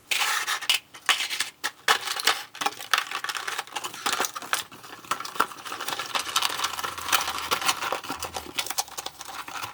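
Hands unpacking a Nendoroid figure: a dense run of small clicks, taps and crinkles from the plastic tray, parts and packaging being handled.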